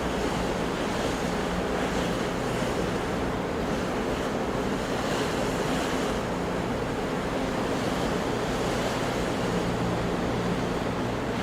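Ocean surf washing in a steady, unbroken wash of noise, with a faint low steady hum underneath.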